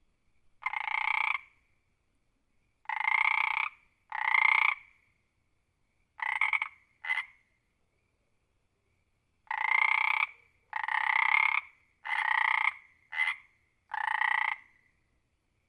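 A frog croaking: ten separate calls of under a second each, in uneven groups with pauses between. Two of the calls are much shorter clipped croaks, one about seven seconds in and one about thirteen seconds in.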